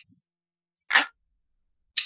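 Glass-like clock ticking sound effect, one sharp, bright tick each second. The tick about a second in is fuller and lower than the others.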